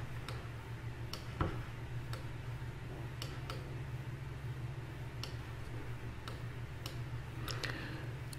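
Scattered, irregular clicks of a computer mouse, about one or two a second, over a steady low hum.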